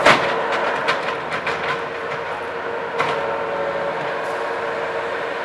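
Skid steer loader running steadily, with a sharp knock at the start, a run of clanks over the next couple of seconds, and another knock about three seconds in.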